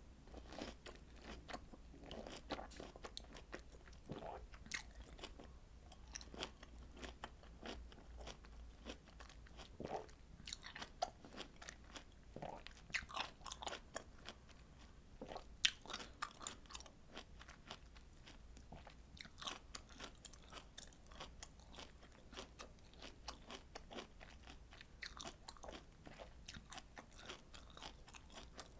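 A person biting and chewing juicy citrus fruit: irregular wet clicks and squelches, with one sharper snap about halfway through.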